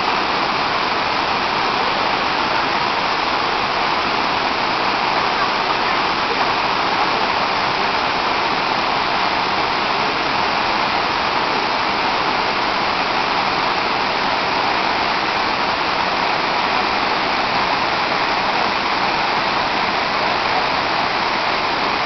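Waterfall sliding down a smooth rock face into a pool: a steady, unbroken rush of water.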